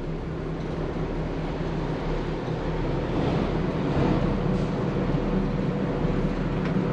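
1999 Carver 504 motor yacht's engines running steadily under way, a constant low drone mixed with wind and water noise, heard from the helm behind the windshield.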